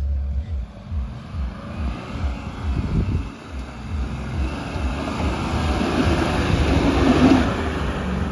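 Mahindra Bolero SUV's engine climbing a steep sandy slope, growing louder as the vehicle comes up close near the end, with wind buffeting rumbling on the microphone.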